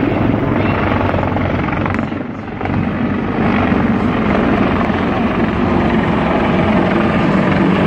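Large Marine Corps helicopter flying overhead, its rotor beating steadily and loudly.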